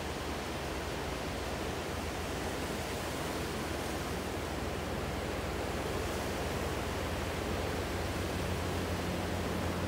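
Ocean surf breaking and washing on the shore, a steady rushing wash of noise that grows a little louder toward the end.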